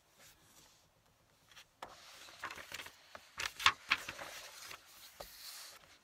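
Paper rustling and rubbing as a roll of writing paper is pulled and rolled forward, with several sharp knocks in the middle of it, the loudest a little over three and a half seconds in.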